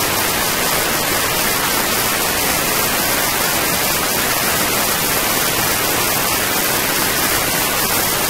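Loud, steady rush of open-air wind over the microphone of a Boeing Stearman biplane in flight, mixed with the noise of its radial engine running, with no distinct engine note standing out.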